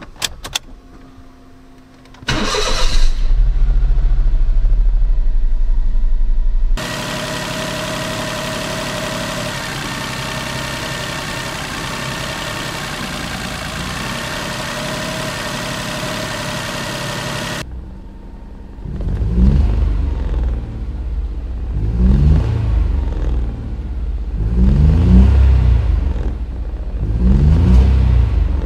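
Daihatsu Cocoa's three-cylinder engine starting, then idling unsteadily with more vibration than normal, then revved four times with the pitch rising and falling. The revs pick up a little sluggishly; the engine is so low on oil that it does not reach the dipstick.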